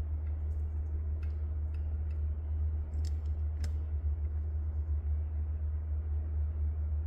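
Steady low rumble, with a few faint light clicks and taps scattered over it.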